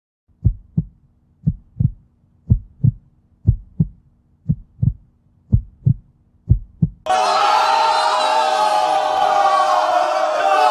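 A heartbeat sound effect: a double thump about once a second, seven times. About seven seconds in it cuts to sudden loud shouting and cheering from football fans celebrating a goal.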